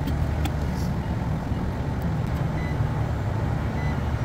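Steady low hum of a running rooftop refrigeration condensing unit, with a few light clicks near the start as meter test leads are handled in an electrical panel and a few faint short beeps near the end.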